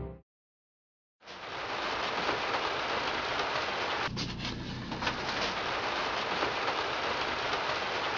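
Small wood fire of kindling sticks crackling and hissing, a dense, steady crackle that starts about a second in, after music cuts off into a moment of silence.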